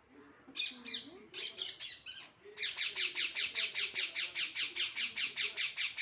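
Green parrot calling: a few separate calls in the first two seconds, then a rapid, even run of shrill calls at about six a second.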